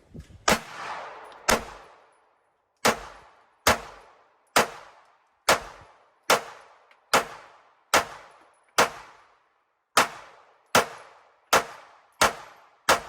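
Springfield Armory Hellcat Pro 9mm pistol being fired in a steady string of about fifteen shots, roughly one shot a second, each a sharp crack with a short echo.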